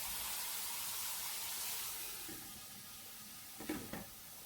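Chicken fillets sizzling in oil in a frying pan, a steady hiss that drops away about two seconds in. A couple of light knocks near the end.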